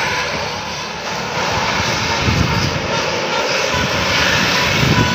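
A large bus passing close by on the road: a loud, steady rush of engine and tyre noise with a low rumble that swells about two seconds in and again near the end.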